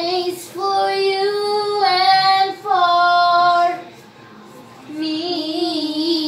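A high voice singing a slow tune in long held notes, each about a second, with a short pause about four seconds in before a wavering note.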